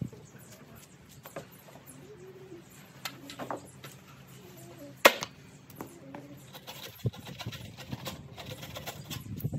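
Hand saw working in a 6x6 timber post, with irregular scraping and knocks; the loudest is a sharp knock about five seconds in. A low bird call repeats a few times in the first half.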